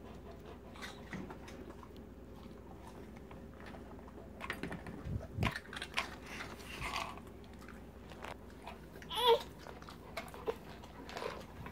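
Bernese Mountain Dog taking small bits of food from a baby's hand and chewing, heard as faint scattered mouth clicks and smacks, busiest in the middle with one low thump. A short baby babble comes about nine seconds in.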